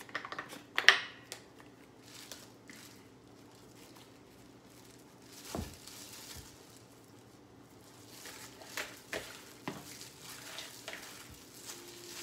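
A spice jar of paprika rattling and clicking as it is shaken over a bowl about a second in, then a plastic-gloved hand rubbing seasoning into raw chicken breast in a plastic bowl: soft crinkling and squishing with a dull knock and scattered small clicks.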